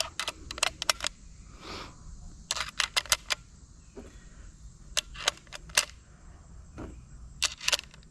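Sharp clicks in several quick clusters as a Long Branch Lee-Enfield rifle is handled and loaded with cartridges.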